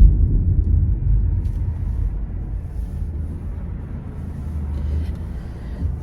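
Low road and engine rumble heard inside a moving car's cabin, easing off somewhat over the first few seconds.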